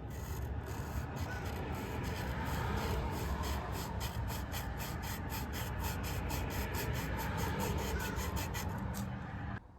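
A small carbon motor brush being sanded down by hand to fit the brush holder of a power window motor. It is a steady rhythmic scraping, about three to four strokes a second, that stops suddenly near the end.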